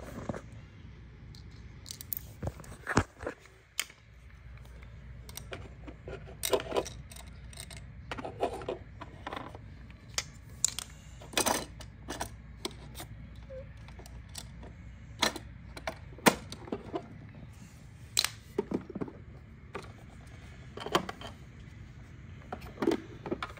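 Small plastic pieces of a Miniverse miniature toy kitchen clicking and tapping as its tiny drawer, fridge and accessories are handled, in scattered sharp clicks over a low steady hum.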